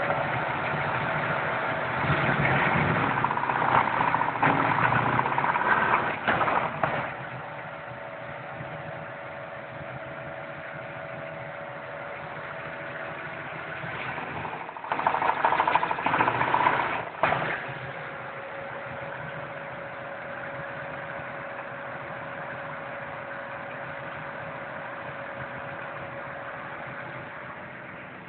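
Cammed LT1 V8 with long-tube headers revved for a few seconds, settling to idle, then revved again briefly before idling on. A loud tick comes in above idle, which the owner suspects is rod knock, a spun bearing or a collapsed lifter, sounding from under the intake manifold.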